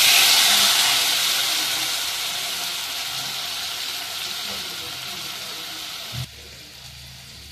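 Sliced tomatoes sizzling as they land in hot oil in an aluminium pot of fried omena and onions. The sizzle is loudest at first and fades slowly, then drops off sharply after a brief low thump about six seconds in.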